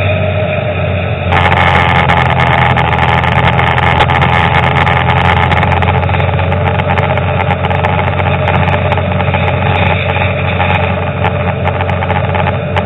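Car engine and road noise from inside a moving car: a steady hum under a rushing sound, which gets louder and brighter about a second in.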